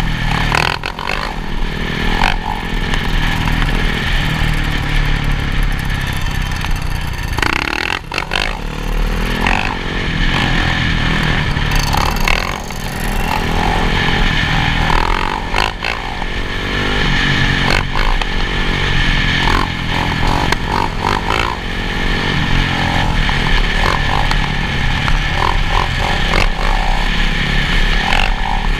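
Motocross dirt bike engines running and revving again and again, with the pitch rising and falling throughout.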